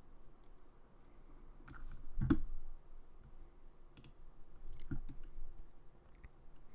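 A handful of sparse computer mouse clicks, the loudest a little over two seconds in, over a faint low hum.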